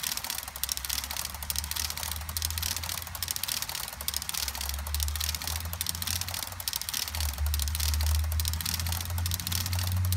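A long string of HO scale model tank cars rolling past on the track, their small metal wheels giving a rapid, continuous clicking clatter. A low hum runs underneath and grows louder in the second half.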